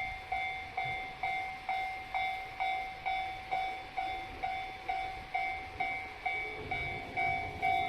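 Japanese railway level-crossing alarm bell ringing its steady 'kan-kan', a little over two strikes a second, warning that a train is coming. A train's low rumble joins about two-thirds through.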